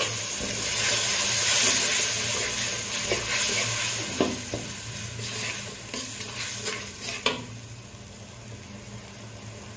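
Spice paste sizzling in hot oil in a large aluminium pot while a long metal spoon stirs and scrapes it, with a few sharp scrapes against the pot. The sizzle dies down near the end once the stirring stops.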